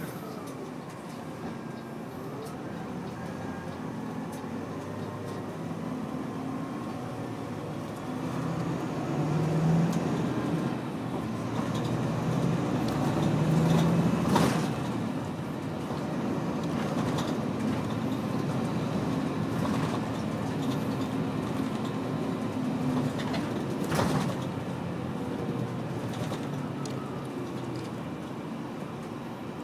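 Coach running through town streets, heard from inside the cabin: steady engine and road noise that swells louder twice near the middle, with a couple of sharp knocks from the coach body.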